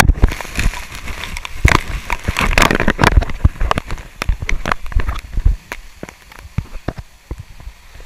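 Water splashing and spattering over a GoPro camera's housing on a water slide, dense and loud for the first three seconds, then thinning to scattered drips and pops that grow quieter.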